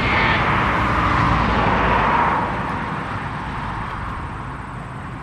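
A passing vehicle: a steady rushing noise that drops in pitch and fades away about two and a half seconds in.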